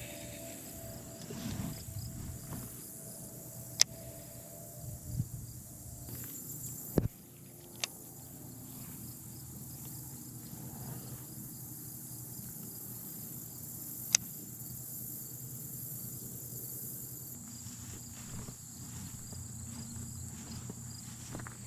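Insects trilling steadily in a high, even buzz. A few sharp clicks stand out above it, the loudest about 4, 7 and 14 seconds in.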